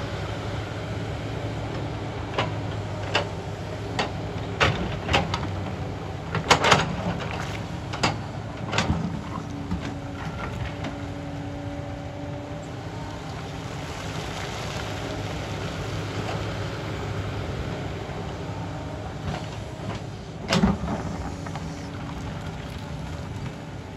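Sany crawler excavator's diesel engine running steadily under load while the bucket digs through loose shale rock. A run of sharp knocks and rock clatters comes in the first nine seconds, and one more loud clatter comes about three seconds before the end.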